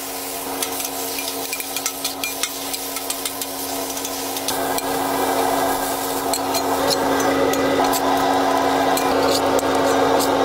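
Metal spatulas clinking and scraping on a flat-top griddle while burger patties and onions sizzle, with many sharp taps throughout. The sizzle grows louder about four and a half seconds in, over a steady low hum.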